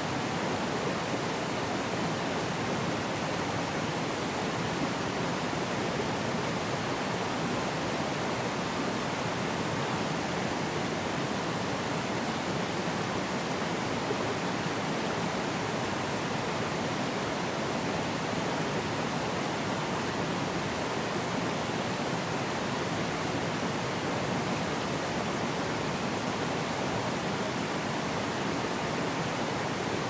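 Forest stream rushing and splashing over small cascades between mossy boulders: a steady, even rush of water that doesn't change.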